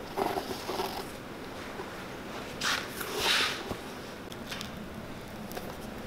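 Stitching thread drawn through a leather storm welt while it is hand-sewn to a boot. There are a few short pulls in the first second, then two longer pulls about three seconds in.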